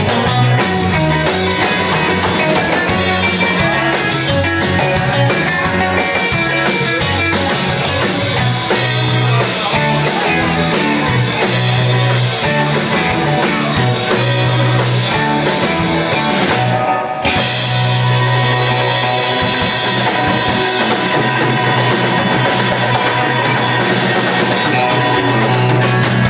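Live instrumental rock band playing: electric guitars over a bass line and a drum kit.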